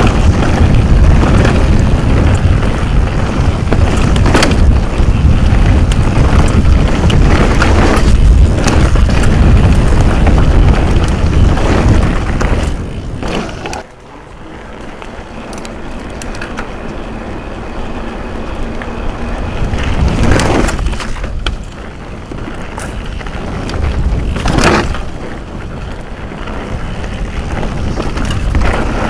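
Propain Rage Carbon downhill mountain bike ridden fast on a rough dirt trail, heard from a helmet camera: constant wind rush with the rattle and clatter of the bike over rocks. About halfway it turns much quieter as the bike rolls onto smooth asphalt, then grows rougher and louder again as it returns to dirt.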